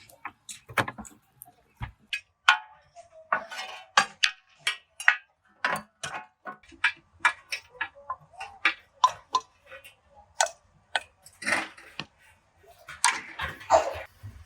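Irregular sharp knocks and clicks, a few each second, some ringing briefly: metal parts being struck or handled in a workshop.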